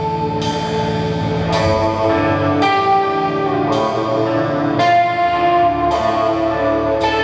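Live band playing a slow instrumental: electric guitar and a trumpet holding long notes that step down in pitch, over drums with a cymbal struck about once a second.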